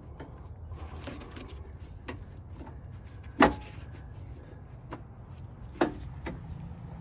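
Hand tools and parts being handled while refitting a car's radiator fan assembly: scattered light clicks and two sharp knocks, the louder about three and a half seconds in and another near six seconds, over a steady low rumble.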